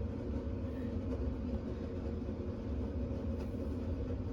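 A steady low mechanical hum or rumble with a few level tones in it, with no clear onsets or changes.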